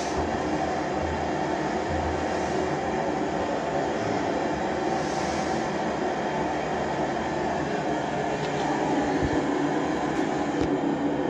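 Blowtorch burning steadily with a constant rushing noise, preheating the hot bulb of a hot-bulb oil engine before a start.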